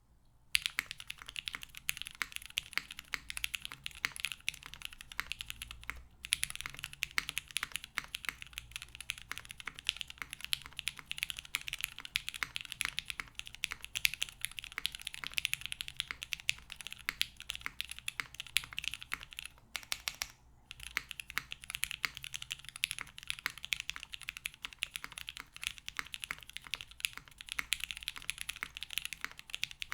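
Fast, continuous typing on an Alas60 60% mechanical keyboard with SP-Star Meteor White switches in Cherry top housings, lubed with Krytox. The keyboard has an aluminium plate, a drop-in O-ring mount, no foam, and GMK doubleshot keycaps. Rapid keystrokes start about half a second in, with two brief pauses, near six seconds and near twenty seconds.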